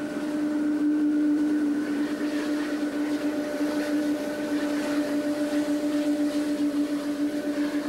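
Boeing 777's Pratt & Whitney PW4084 turbofans running at taxi power as the airliner rolls past: a steady drone with higher whining tones over a rush of jet noise.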